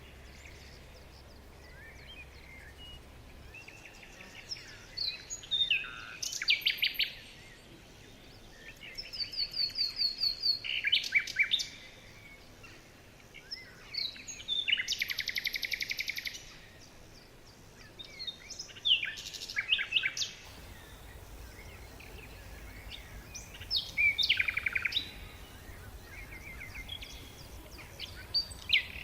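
Songbirds singing: bouts of trills, rapid chirp series and falling whistled notes every few seconds over a faint steady hiss.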